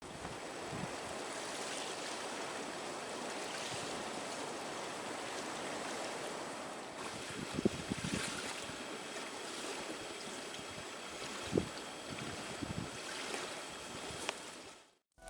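Small lake waves washing on the shore: a steady wash with a few faint knocks about eight and twelve seconds in, fading out near the end.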